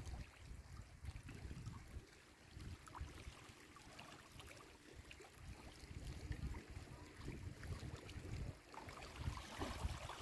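Small ripples of lake water lapping and trickling among the stones of a shallow rocky shore, soft scattered splashes. Under it, an uneven low rumble of wind on the microphone.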